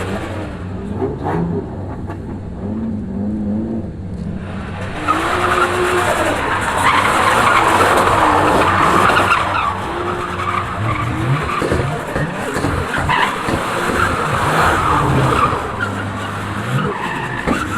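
Toyota Crown Estate's turbocharged 1JZ straight-six revving up and down again and again while a rear tyre spins and squeals on the road surface. The tyre noise is loudest from about five to ten seconds in.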